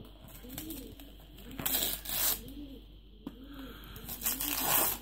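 Wrapping paper being torn open in two rips, the first about a second and a half in and the second near the end. Underneath, a dove coos over and over, a low call repeating about every half second.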